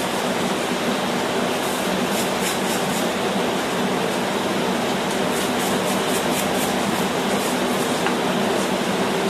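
A steel wire brush scrubbing scale off a red-hot steel hammer head on the anvil, with short scratchy strokes in two spells. Under it runs a steady loud rushing noise with a low hum.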